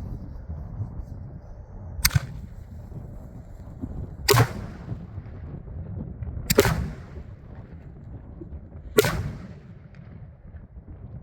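Master 5 80-series 5-inch canister shells fired from a mortar: four sharp bangs about two seconds apart, the lift charges and the bursts of the shells in the air.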